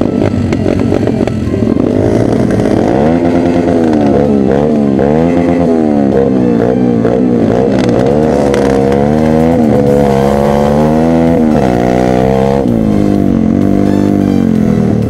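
Single-cylinder pit bike engine revving up and down over and over while riding, heard from on board. Its pitch keeps rising and falling from about three seconds in until near the end.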